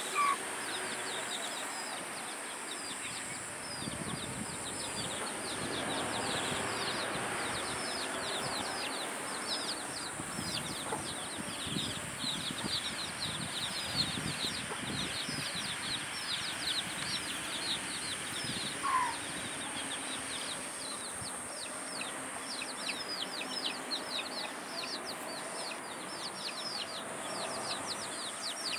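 Chicks peeping in a rapid, continuous run of short falling chirps, with a couple of brief lower chicken calls, one near the start and one about two-thirds through, over a steady high hiss.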